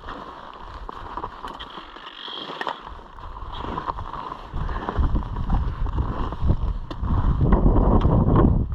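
Wind buffeting the microphone, a gusty low rumble that grows much louder about halfway through.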